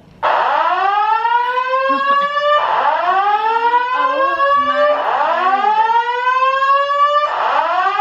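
Building fire alarm sounding its evacuation tone: a loud whoop that sweeps upward in pitch and repeats about every two and a half seconds, four sweeps in all.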